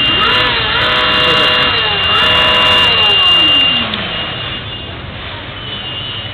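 An engine revving hard and rising in pitch, with two brief dips like gear changes. About three seconds in the pitch falls away steadily over a second as the vehicle slows or moves off.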